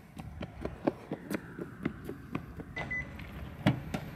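Footsteps of people walking, a quick run of light knocks about four a second, with a short high beep about three seconds in.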